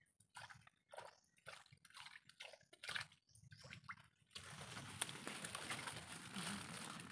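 Faint sloshing steps through shallow water and mud, about two a second, giving way after about four seconds to a steady rushing noise.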